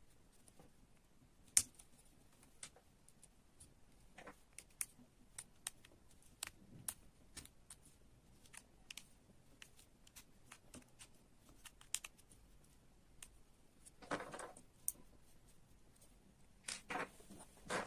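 Parts of a construction-kit model excavator being handled and fitted: scattered light clicks and taps, with a short scraping rustle about fourteen seconds in and two more near the end.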